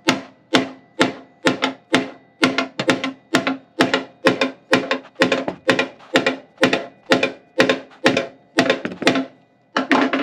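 Steady hammer blows on the thick steel inner fender of a 2006 Mustang GT, about two a second, each with a short metallic ring, as a bent section is driven back into shape.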